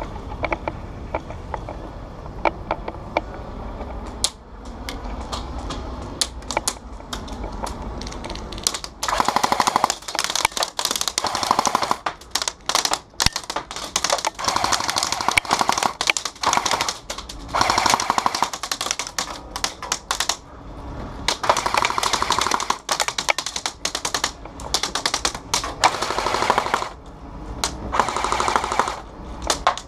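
Airsoft AK-pattern rifle firing full-auto bursts, a fast clattering of rapid shots in runs of one to two seconds, repeated many times. The first several seconds hold only scattered single clicks and knocks before the bursts begin.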